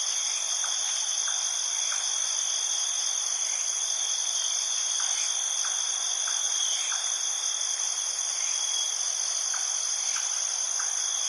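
Steady night-time insect chorus of crickets and similar insects, several high continuous trills layered together, with faint short chirps scattered through it.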